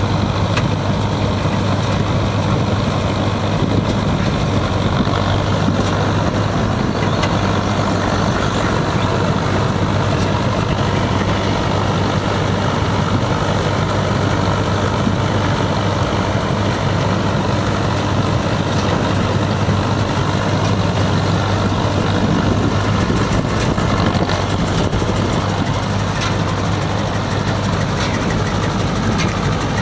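Yanmar Arjun YH 700 combine harvester's diesel engine running steadily, a constant low hum at an even level throughout.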